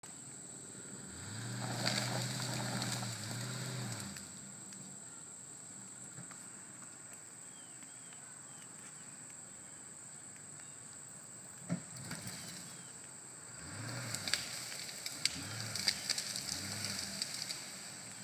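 Toyota Tundra engine revving hard under load as it pulls a tree: one long rev about a second in lasting some three seconds, then three short revs near the end with a few sharp cracks and crackles among them. Insects buzz steadily in the background.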